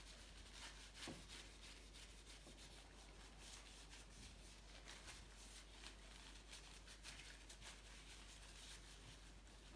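Near silence: faint scattered rubbing and small ticks, with one slightly louder tick about a second in.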